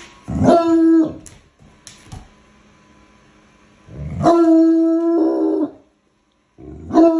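Bloodhound howling in steady-pitched calls: a short howl near the start, a long held howl of about a second and a half in the middle, and another beginning near the end. He is howling at a Roomba robot vacuum moving around him.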